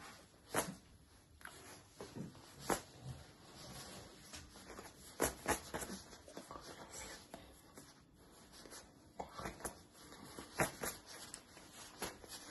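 Irregular clicks and knocks, a few at a time with pauses between, in a small room.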